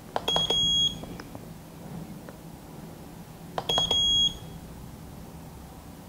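FLOW emergency-light switch panel answering two presses of its knob button about three and a half seconds apart, each a click followed by a short high electronic beep. The presses step the light head's flash pattern.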